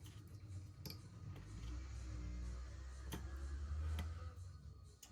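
Bench handling noise while tape strips are fitted to a phone frame: a few light clicks and faint rustling, over a low rumble in the middle.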